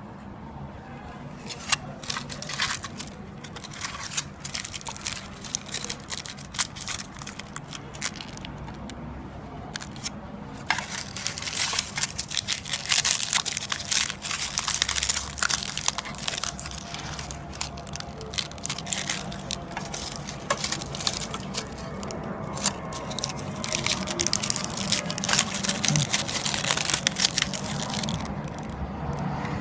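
Foil chocolate wrappers crinkled and peeled apart by hand: dense, irregular crackling that grows heavier about a third of the way in and eases near the end.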